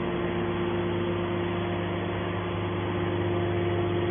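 Hydraulic scrap-metal baler's power unit running steadily: an even machine hum with a steady whine from the electric motor and hydraulic pump.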